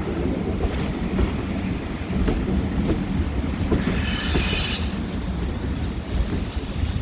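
Train running on the rails with a steady rumble and faint knocks, and a brief high squeal about four seconds in.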